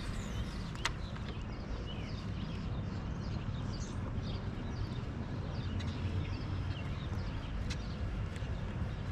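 Many short bird chirps over a steady low rumble, with a few sharp clicks.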